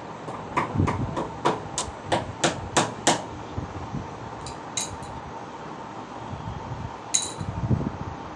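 Hammer blows during sofa repair work: a quick run of about nine strikes, roughly three a second, then a few scattered strikes later on.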